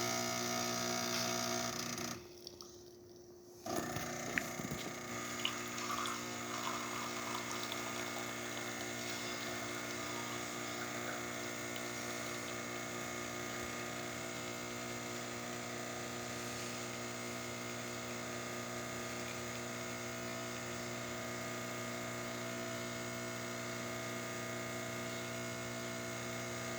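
Jura Giga X7 super-automatic espresso machine making a shot: its running stops briefly about two seconds in, then its water pump runs with a steady hum for the rest of the brew.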